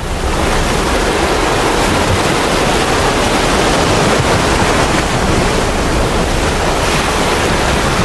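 Avalanche of snow and ice pouring down a mountainside: a loud, steady rushing noise.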